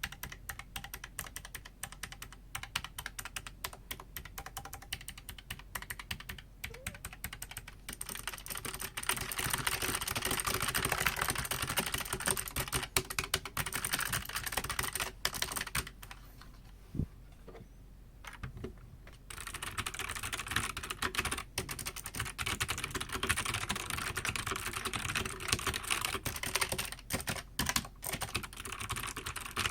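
Typing on a mechanical keyboard with clicky switches. A few seconds of scattered keystrokes lead into fast, continuous clacking. About halfway there is a pause of roughly three seconds, then fast typing resumes.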